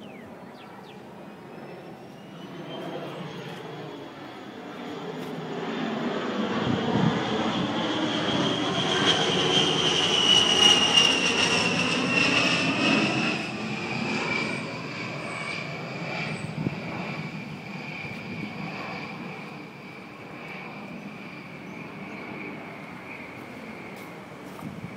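A-10 Thunderbolt II "Warthog" flying past overhead. Its twin TF34 turbofans give a high whine over a rushing sound. The sound swells to its loudest about ten seconds in, then fades, and the whine drops in pitch as the jet passes.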